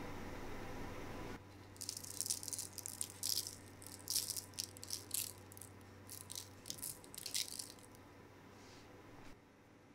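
Granulated sugar sprinkled over raw rock-cake dough on a parchment-lined baking tray: a run of quick, crackly rattling patters lasting about six seconds. A steady hiss cuts off about a second and a half in, before the patters start.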